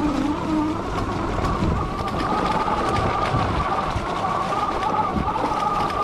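Electric bike's rear hub motor whining under heavy load on a steep climb, a steady two-tone whine that grows stronger about two seconds in, over the rumble and crunch of tyres on a dirt trail.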